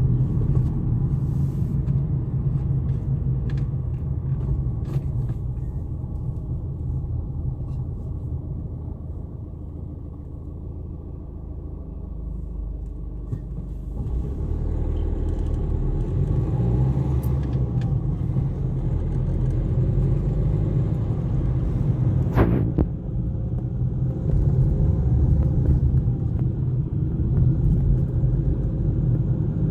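Tram running, a steady low rumble that eases off about a third of the way through and builds up again soon after. There is one brief, sharp high-pitched sound about three-quarters of the way through.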